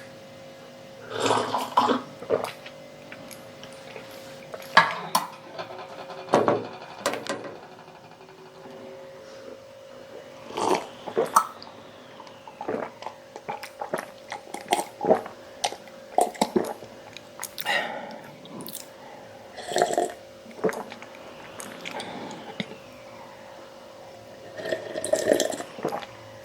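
A glass of milk being drunk: a series of separate gulps and swallows, one every second or two, with sharp clicks of the glass.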